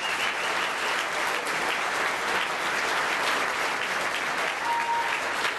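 Audience applauding: a steady, dense spread of clapping hands.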